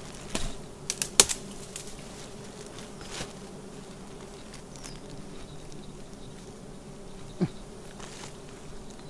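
A colony of wild honey bees buzzing steadily around their exposed nest on a branch. Twigs and leaves crackle and snap about a second in, as someone pushes through the tree close by. There is a single short knock near the end.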